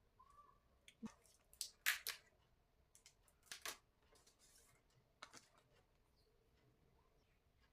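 Phone box and packaging being handled: a few short clicks and rustles of cardboard and plastic, the loudest about two seconds in, with quiet between.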